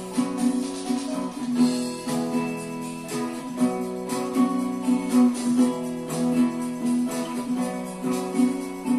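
Nylon-string classical guitar played in strummed chords, steady and rhythmic, with no singing.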